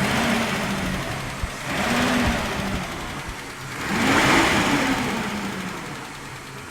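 Mitsubishi 6G72 3.0-litre V6 engine revved three times from idle, each rev rising and falling in pitch. The third rev is the highest and loudest, and then the engine settles back to idle.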